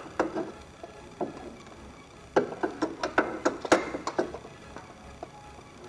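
A run of sharp clicks and knocks, with a quick cluster about halfway through, as tools and parts are handled during an oil change on a motorcycle.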